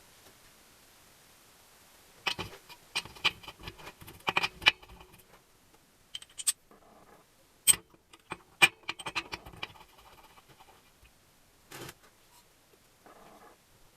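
Metal parts and tools being handled during engine assembly: sharp clinks and taps with a brief metallic ring, in two bursts, then a couple of short scrapes near the end.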